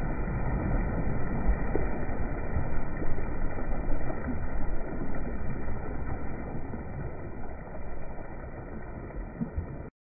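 Muddy floodwater splashing and churning around a person and a fallen motorcycle, over a heavy low rumble. The sound is muffled and cuts off suddenly near the end.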